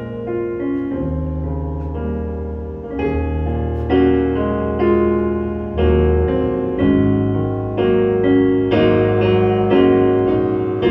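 Piano playing an instrumental interlude: chords struck roughly once a second over held bass notes, growing louder about four seconds in.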